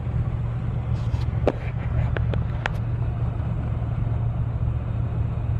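Steady low rumble of a running vehicle heard from inside the cab. About one to three seconds in come a few short lip smacks and clicks from puffing on a tobacco pipe.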